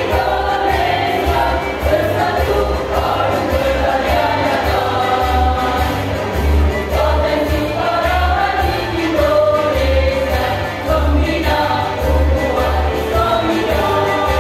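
Women's choir singing in harmony, with a low pulsing beat underneath.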